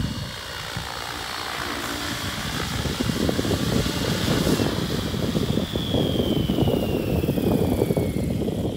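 Electric radio-controlled helicopter (Mikado LOGO 700) with its motor and rotor whining; past the middle the whine falls steadily in pitch for about two seconds. Gusts of wind buffet the microphone, growing louder after the first few seconds.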